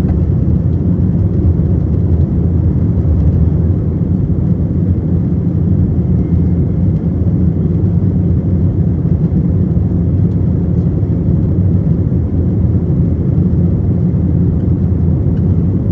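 A jet airliner's engines and airflow making a steady, low, unchanging roar during takeoff.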